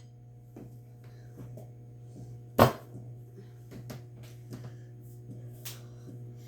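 Kitchenware being handled: light clicks and taps, with one sharp knock about two and a half seconds in and a softer one near the end, over a steady low hum.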